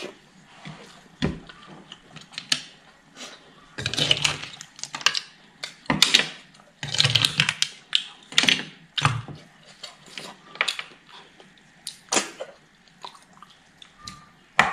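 Close-up eating sounds of a person eating snails in their shells: irregular wet chewing and slurping, with small clicks of shells and a spoon.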